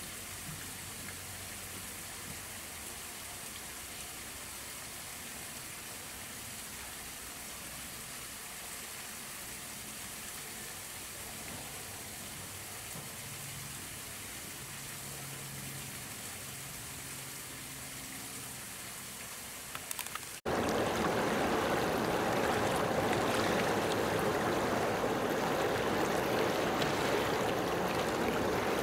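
Faint steady outdoor background hiss, then, about twenty seconds in, an abrupt cut to a much louder, steady rushing of water at a shoreline.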